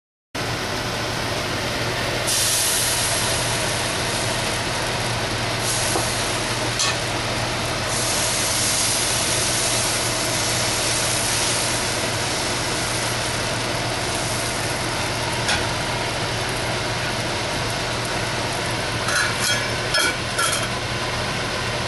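A steady low hum with hiss runs throughout. Near the end comes a quick cluster of metal clinks as a steel lid is set on the appam pan.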